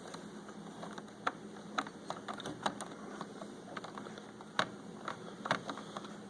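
Light, irregular clicks and taps of plastic Lego pieces being handled and moved, with a few sharper clicks among them.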